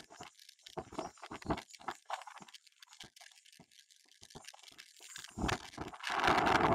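Scattered faint clicks and taps at an uneven pace, then a quiet stretch. About six seconds in, wind starts rumbling on the microphone.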